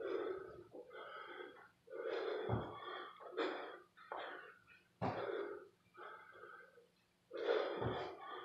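Heavy, labored breathing of a man doing burpees: hard panting exhalations, one after another. A dull thud on the floor comes about every two and a half seconds as he drops down or lands.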